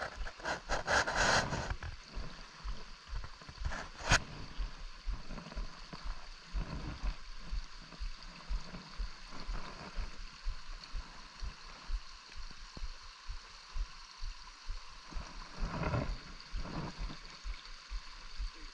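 Brook water running steadily, with a louder rush of noise in the first second and a half and a single sharp click about four seconds in, over many soft low knocks.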